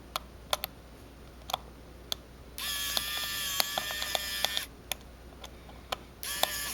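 Electric precision screwdriver (Wowstick) driving the small screws back in: its motor gives a steady whine for about two seconds in the middle and again briefly near the end. Light, sharp clicks of the bit and screws come in between.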